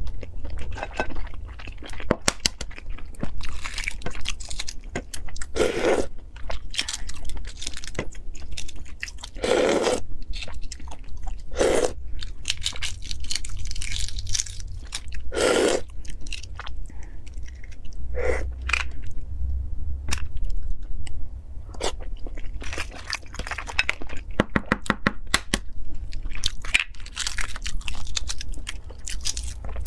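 Cooked eggshells cracking and being picked off with fingernails: a dense, irregular crackle of small sharp clicks, with some chewing in between.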